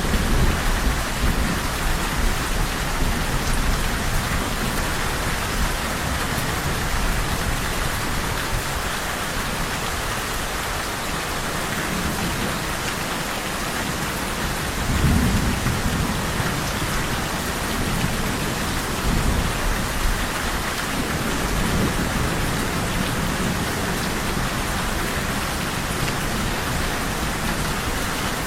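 Steady, heavy rainfall hissing without a break, with low rolls of thunder swelling up near the start, about halfway through, and again a few seconds later.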